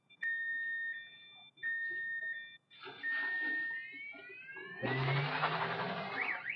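Car alarm going off and cycling through its tones: steady beeps about a second long, then rising whoops, then a fast warble near the end. A burst of rushing noise sounds under it about five seconds in.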